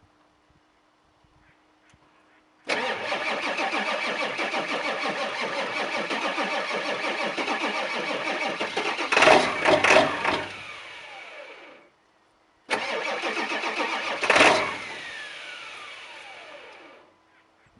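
Ford 7.3-litre Power Stroke V8 turbo-diesel being cranked twice on a cold start. Each time the starter turns it over with a steady pulsing, then it fires with loud surges and runs down to a stop without catching. A hard cold start that the owner puts down to bad injectors.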